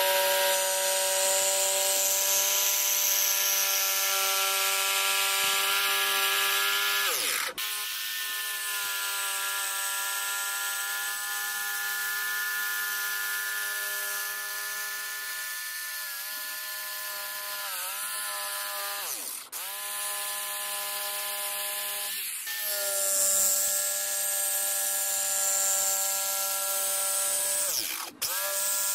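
Electric power saw cutting through a wooden board for a chair leg: a steady high motor whine over a rasping hiss, slowing under load in places, and three times briefly dropping in pitch and picking back up as the trigger is eased and squeezed again.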